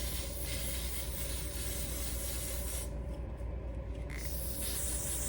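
Aerosol lace-melting spray hissing onto a wig's lace: one long spray of about three seconds, then a pause and shorter sprays near the end.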